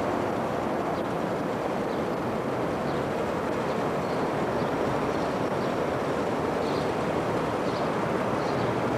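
Steady city street noise: an even rumble of distant traffic and air. Faint short high chirps come now and then in the second half.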